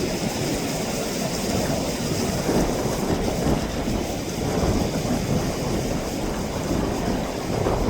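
Steady rushing noise of sea surf and wind buffeting the microphone, rising and falling a little.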